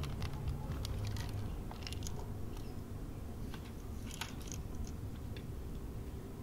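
Faint clicks and rustles of a plastic toy submachine gun being handled and turned over in the hands, with scattered light taps of plastic.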